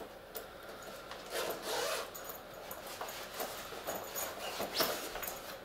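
Zip of a padded cricket bat cover being pulled open in a series of short pulls, the loudest about a second and a half in, with the cover rubbing as the bat is handled.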